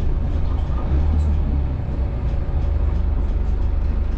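Inside a moving city bus: steady low engine and road rumble.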